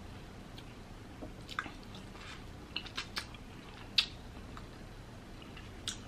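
Close-up wet mouth smacks and clicks of someone chewing sauce-coated king crab meat: a handful of short smacks scattered through the quiet, the loudest about four seconds in.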